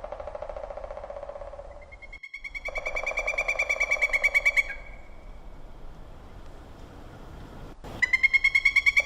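Woodpeckers calling: fast runs of sharp repeated notes. One run starts about two seconds in and stops near the five-second mark, and another starts loudly about a second before the end.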